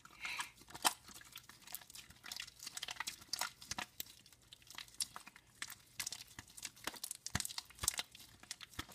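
Sticky, half-formed slime being kneaded and pulled apart by hand, giving an irregular run of wet clicks, pops and crackles.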